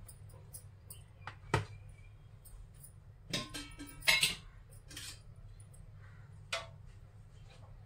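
Several scattered clinks and knocks of steel kitchen utensils, a spoon and vessels being handled, a couple of them with a short metallic ring.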